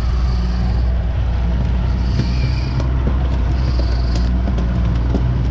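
90 hp Yamaha outboard motor running steadily at trolling speed, a constant low drone with wind and water noise over it.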